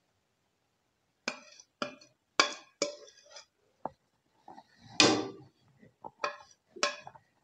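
White ceramic plates knocking and clinking together as ground spices are tapped off one plate into another: about eight sharp knocks at uneven intervals, the loudest about five seconds in.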